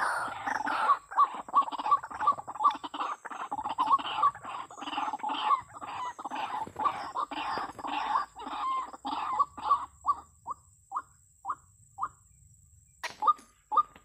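White-breasted waterhen calls: fast repeated croaking notes, thinning into single spaced notes about ten seconds in, stopping for a moment, then starting again near the end.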